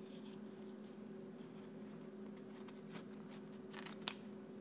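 Plastic cards being pushed into the tight pockets of a new Horween Chromexcel leather card wallet: faint scraping and rubbing of card against leather, with a few light clicks toward the end, sharpest about four seconds in. Over a steady faint hum.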